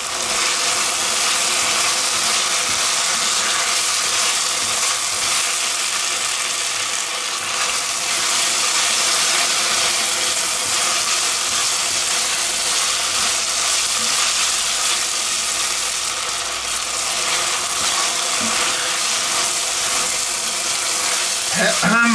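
Red wine sizzling steadily as it deglazes browned vegetables and tomato paste in an enamelled cast-iron pot, stirred and scraped with a wooden spoon.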